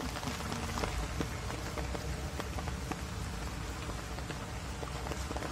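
Steady rain falling, with many small sharp drop hits scattered through it.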